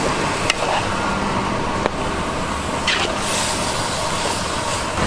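Steady street traffic noise, with a few short clinks of a metal ladle stirring in a wok.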